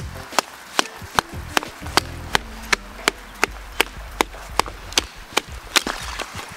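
Batoning: a wooden baton striking the back of a blade to split a log, a steady run of sharp knocks about two and a half a second that stops near the end.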